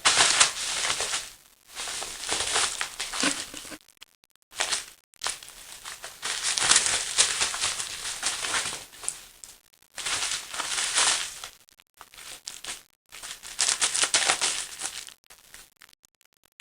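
Paper napkin bag and bubble wrap crinkling and rustling in about six bursts with short pauses between, as a cat chases and pounces on the bag lure.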